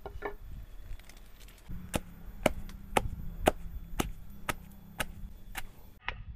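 Curry spices being pounded with a pestle in a mortar: sharp, regular strikes about two a second.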